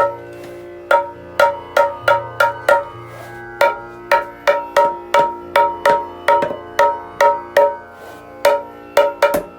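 Dholak being struck by hand to check its tone after repair. Single strokes on the head each give a bright, ringing pitched note that dies away quickly. The strokes come in uneven runs of two to three a second, with two short pauses.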